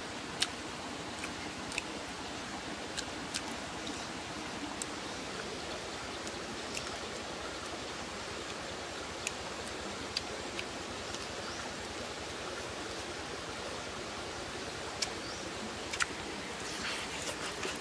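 A person eating by hand: scattered small clicks and mouth smacks, more of them near the end as she bites into the food, over a steady, even hiss.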